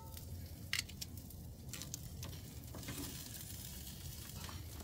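Lobster tails sizzling on a charcoal grill, a steady hiss, with a few sharp clicks of metal tongs, the loudest about a second in.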